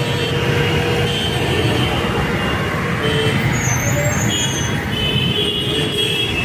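Steady, loud outdoor din at a fairground entrance: a constant low rumble of traffic and engines, with faint brief high tones coming and going in the second half.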